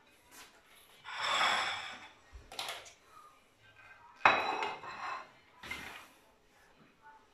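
Sliced carrots being pushed off a cutting board onto a ceramic plate: short scrapes and light clatter, with one sharp ringing clink of the plate about four seconds in, the loudest sound.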